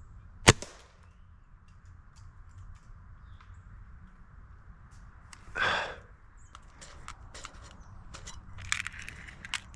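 Pellet-gun air rifle fired once: a single sharp crack about half a second in. A brief rustle follows about five seconds later, then light crunching of dry leaves underfoot near the end.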